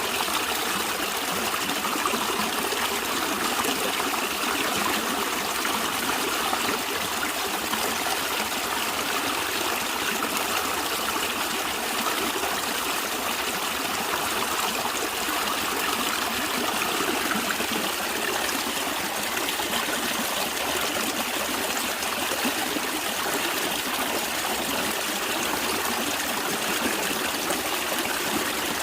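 Natural stream water flowing and trickling steadily, an even rush of water with no breaks.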